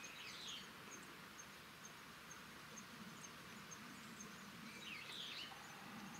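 Faint outdoor ambience: an insect chirping steadily at a high pitch, roughly two or three chirps a second, and a bird calling briefly twice, near the start and again about five seconds in.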